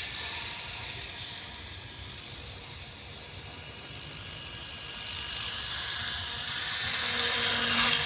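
Electric 700-size RC helicopter (KDS 700, flybarless, on two 6S packs) in flight: a steady whine of motor and rotor blades, growing louder over the last three seconds.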